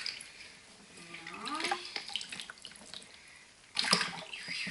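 Bathwater sloshing and splashing as a kitten is washed by hand in a bathtub, with a louder splash near the end.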